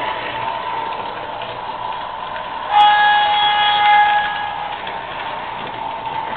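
MTH O-gauge Brooklyn PCC streetcar model running on its track, with a steady running noise. About three seconds in, a click, then its sound system sounds a held horn-like warning tone for a second or two.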